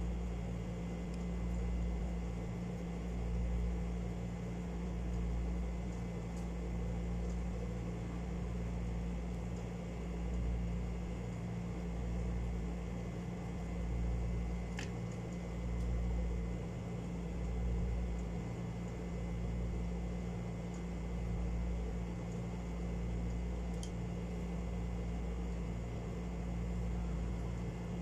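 Steady low mechanical hum that swells and eases about every two seconds, with two faint clicks in the middle part.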